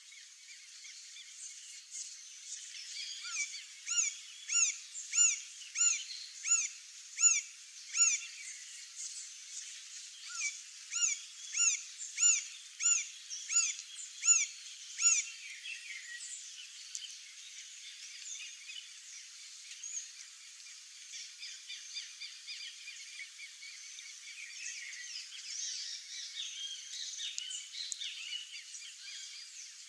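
Male green-barred woodpecker calling: two series of loud, evenly repeated call notes, about one and a half a second, with a short pause between the series. Fainter calls of other birds continue in the background.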